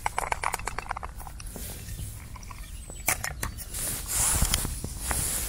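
Canned sweet corn kernels tipped out of a tin can into a small bowl: a quick run of small clicks and taps for the first second or so. Scattered clicks and two short rustles of hands and clothing handling the tin and bowl follow.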